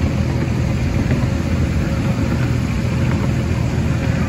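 Small engine of a diesel-outline miniature railway locomotive running steadily as the train moves along, a low even drone.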